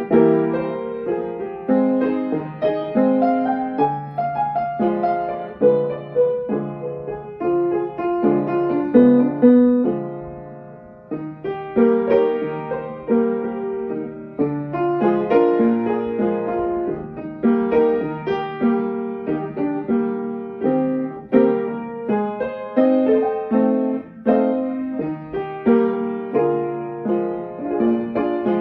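Upright piano played by hand: a flowing piece of chords and melody. The playing eases to a quiet moment about ten seconds in, then picks up again.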